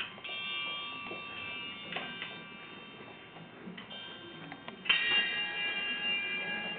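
Hanging metal triangles and other suspended metal pieces struck one at a time, each hit ringing on with several high, bell-like tones. The strongest hit comes about five seconds in and rings on the longest.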